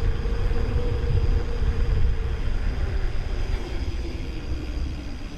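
Wind rushing over the microphone and tyre rumble from a rider on the move, with a faint hum that slowly falls in pitch as the ride eases off near the end.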